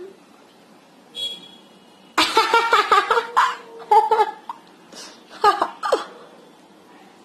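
A toddler's high-pitched laughter and giggling, in a string of short bursts starting about two seconds in and again around five seconds.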